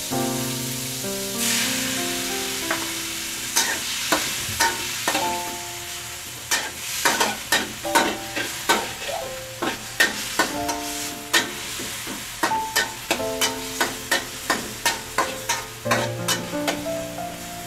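Metal spatula scraping and clacking against a steel wok in quick, irregular strokes, thickest in the middle and later part, as pork pieces sizzle in the pan. Background music plays underneath.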